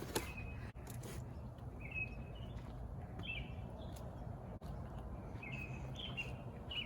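Small birds chirping: short high chirps in little clusters every second or two, over a steady low outdoor rumble, with one sharp click right at the start.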